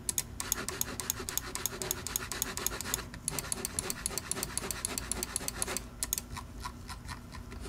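Logitech G Pro Wireless mouse being worked through a function test after a switch replacement: a rapid, even run of small clicks, about ten a second, pausing briefly about three seconds in and again near six seconds.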